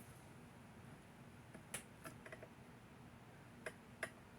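Three faint, sharp clicks of small metal pieces tapping: a magnet touched against a tiny ring that it does not pick up. The rest is near silence.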